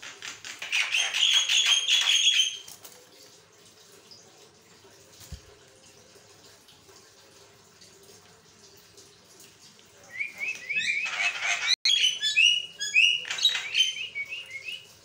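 Caged Javan myna (jalak kebo) chattering: a quick burst of harsh squawking calls at the start, then a few seconds' pause, then a longer run of rapid chattering squawks from about ten seconds in.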